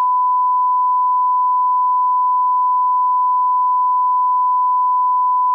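A steady electronic beep: one pure, unwavering tone held for several seconds, then cut off suddenly.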